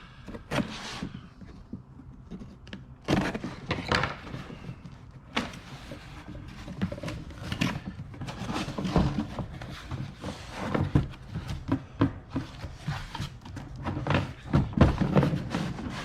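Things being handled in a cardboard box: irregular knocks and thunks with rustling as items are picked up, moved and set down.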